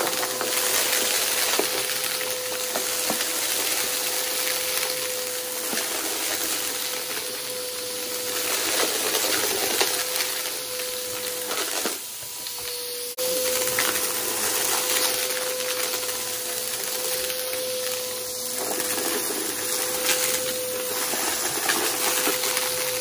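Aeroswift vacuum cleaner running with a steady motor whine, under a dense crackle and rattle of dry debris being sucked up. It drops briefly about halfway through, then comes back.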